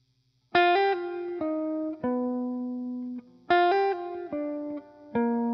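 Background music: a short plucked-string melody of a few falling notes ending on a held low note, played twice.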